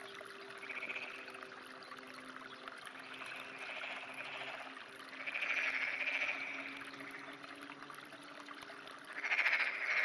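Frogs calling in short rattling croaks, four calls about a second long each, the loudest near the end.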